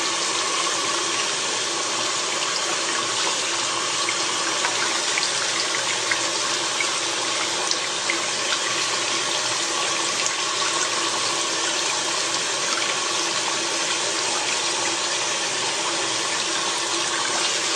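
Water running steadily from a tap and splashing, as during a water test of a phone.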